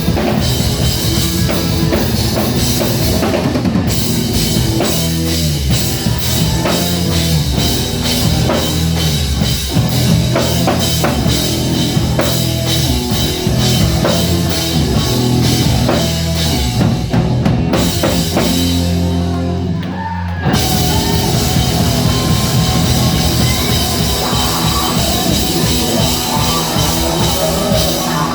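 Rock music with a full drum kit and guitar, loud and continuous, with a short break in the cymbals and highs about two-thirds of the way through.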